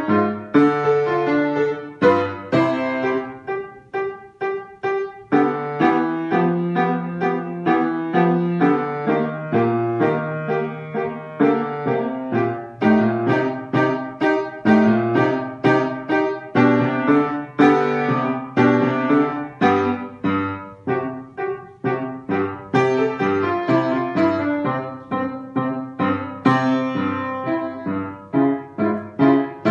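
Upright acoustic piano playing a march, a steady stream of short, crisply struck notes over a lower bass line.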